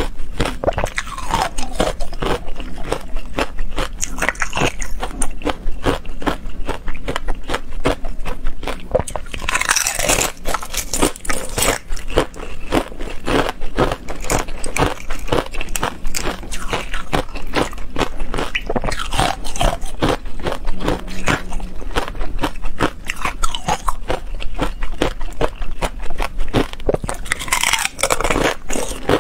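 Thin ice being bitten and chewed close to a clip-on microphone: continuous dense crunching and crackling.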